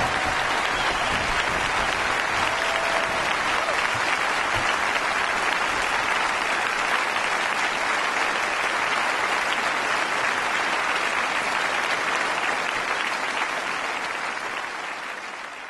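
Concert audience applauding steadily, the clapping fading out near the end.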